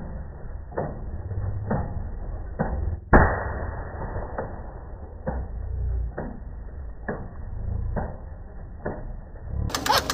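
A long rubber balloon being blown up by a tractor's exhaust bursts with one sharp, loud pop about three seconds in. Under it the tractor engine runs as a muffled low rumble with dull thuds about once a second, and near the end the engine's fast, knocking beat comes through clear.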